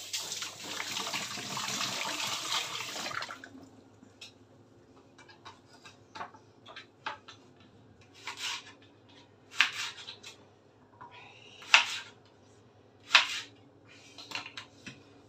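Tap water running for about three seconds, then a knife cutting a leek into chunks on a wooden chopping board: separate sharp cuts a second or two apart.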